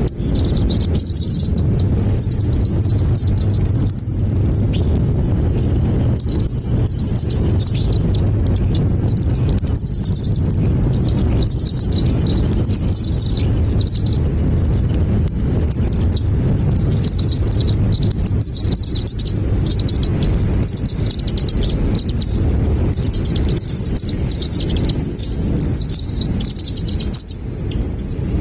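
Small birds chirping repeatedly in short high notes, denser and higher-pitched near the end, over a steady low rumble.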